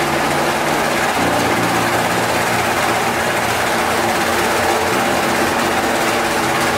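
A steady, dense rushing drone with held low notes, the sound-design bed of a product promo soundtrack; the low notes change about a second in.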